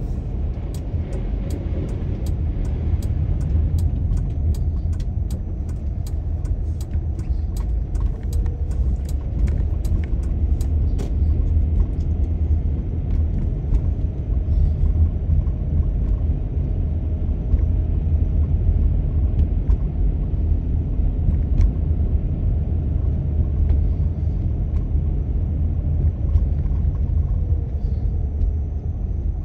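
A car driving on city streets: a steady low rumble of engine and road noise. Over roughly the first ten seconds a run of light, evenly spaced ticks sounds over it.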